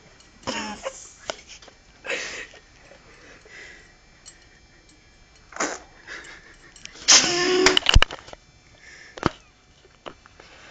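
A person's short, breathy vocal bursts, several in a row, with the longest and loudest about seven seconds in, followed by a few sharp clicks.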